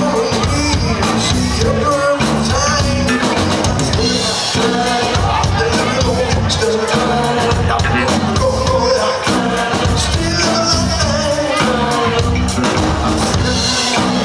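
Live band playing at full volume: electric guitar, drums and keyboard with a lead singer and backing vocals, with a steady beat.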